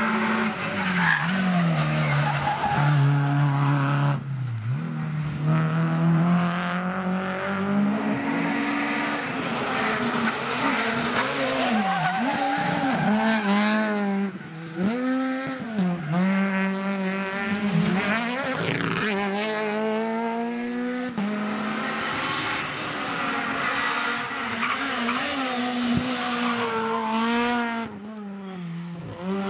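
Renault Clio and Peugeot 208 rally cars taken hard through a tarmac stage one after another. Their engines rev up and drop back sharply with each gear change and lift, and the tyres squeal in the corners.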